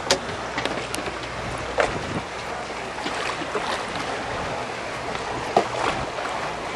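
Wind blowing across the microphone, a steady rushing noise, broken by three sharp knocks.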